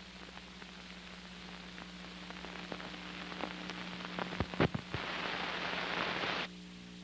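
Soundtrack noise from a worn copy of old film transferred to VHS: hiss with a steady low hum and scattered crackling clicks. The clicks grow denser into a cluster of loud pops about four and a half seconds in, then a louder burst of hiss cuts off suddenly near the end.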